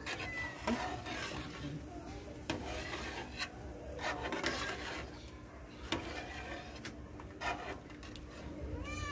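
Repeated rubbing and scraping in short spells, with a few sharp knocks in between, and a cat meow right at the end.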